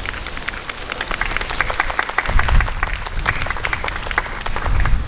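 A small group of people applauding: quick, uneven hand claps that thicken after the first second, with a couple of low rumbles beneath them.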